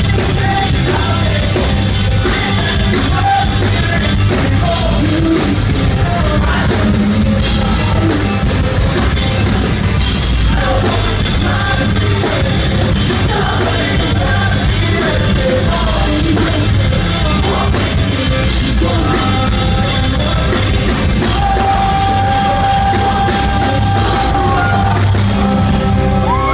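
Live rock band playing loud: electric guitar, bass guitar and drum kit with sung and yelled vocals, and one long held note near the end.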